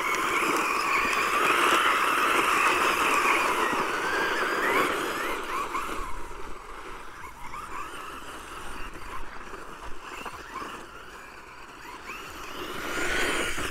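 XLF F11A 1/10 electric RC off-road truck running, its motor whine gliding up and down in pitch with the throttle. It is loudest for the first few seconds, drops away about halfway through, and swells again near the end.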